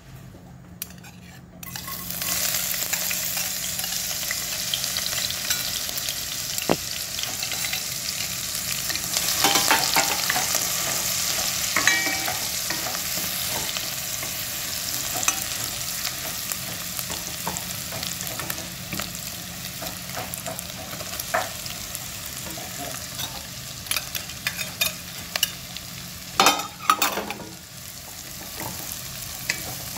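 Minced garlic hits hot vegetable oil in a nonstick pot and sizzles at once about two seconds in, then fries steadily while a wooden spoon stirs and scrapes the pan. Near the end come a few louder knocks and scrapes as diced onion goes in and is stirred through.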